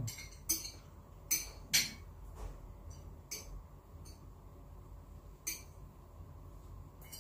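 Chopsticks and tongs tapping and clinking against bowls and foil food trays as people eat: about half a dozen short, sharp clinks spread over several seconds, over a faint low hum.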